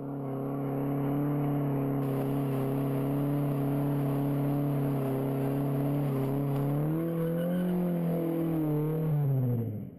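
1978 Ford Capri's modified 2.0 Pinto four-cylinder engine held at steady high revs during a tyre-smoking burnout. The note rises a little about seven seconds in, then drops and fades away near the end.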